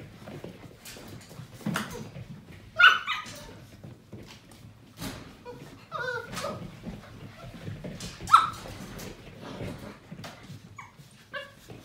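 Seven-week-old Portuguese Water Dog puppies yipping and giving short high barks as they play, with light knocks and scuffling between the calls. The sharpest barks come about three seconds and eight seconds in.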